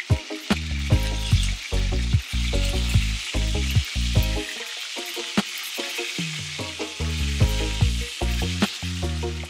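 Background music with a steady beat, over fish steaks sizzling in oil in a stainless steel pan.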